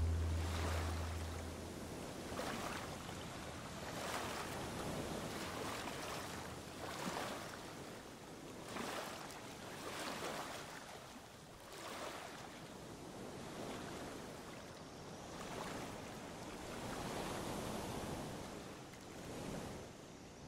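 Ocean surf, waves washing in and out and swelling every second or two. A low steady tone dies away in the first two seconds.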